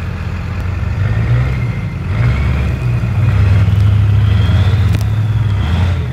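Pickup truck diesel engines running hard under load, pulling a stump out on a chain and tow strap, with the engine sound swelling as the pull builds. A whine climbs in pitch from about two seconds in, and a single sharp snap comes about five seconds in as the stump gives way.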